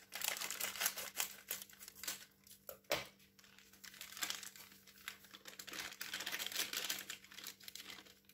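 Foil-lined powdered-milk sachet crinkling as it is squeezed and shaken to empty the milk powder into a bowl, with one dull knock about three seconds in.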